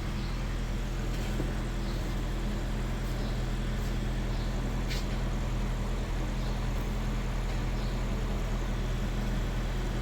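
2014 Honda Fit's four-cylinder petrol engine idling steadily after a full tune-up, with a low, even hum.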